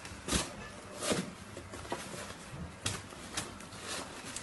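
A cat pawing and scuffing at a cardboard box, giving about four sharp taps, irregularly spaced, over a steady background hiss.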